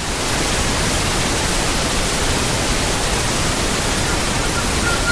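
Television static: a steady hiss of white noise, like an untuned analogue TV, spread evenly from low to high.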